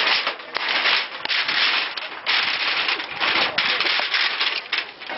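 Demolition debris of cardboard, wooden slats and plastic being pulled apart and dragged by hand: irregular bursts of scraping and crackling with scattered sharp snaps.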